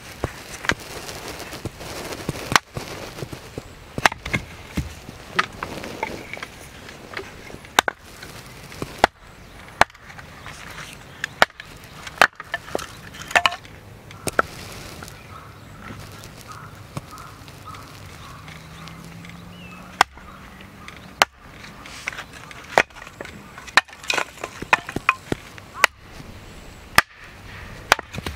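Hatchet splitting firewood on a wooden chopping block: many sharp knocks at irregular intervals as the blade strikes the log.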